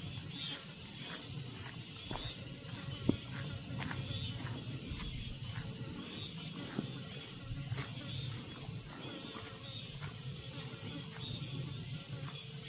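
Insects trilling steadily, with a low hum under them and a few faint clicks and taps.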